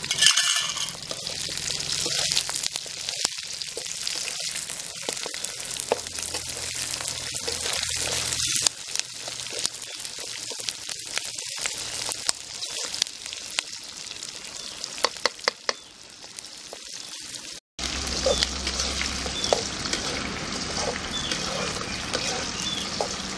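Curry leaves, with onion and chillies, sizzling as they fry in hot oil, with a strong spit just as the leaves go in. About fifteen seconds in come a few sharp clicks of a spatula against the pan as the mixture is stirred. The sizzle cuts out briefly and then carries on.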